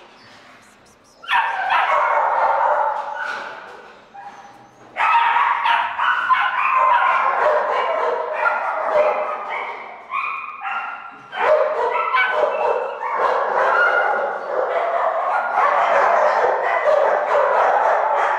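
Dogs in shelter kennels barking and yipping, many calls overlapping into a dense din that starts about a second in, eases briefly around four seconds, then runs on unbroken.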